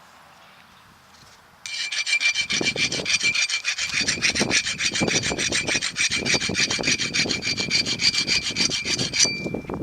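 A small power tool runs with a steady whine as it grinds rapidly against metal, starting about two seconds in and stopping near the end, the whine trailing off briefly as it winds down. It is smoothing a burr off the drive-shaft yoke, nicked while hammering out an old U-joint cap, so the new cap can seat.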